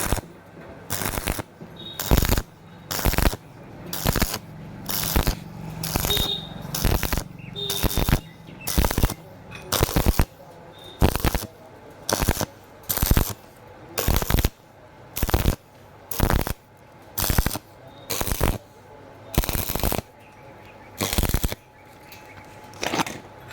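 Stick welding arc crackling in short bursts about once a second. The arc is struck and broken again and again to stitch-weld thin square tubing without burning through.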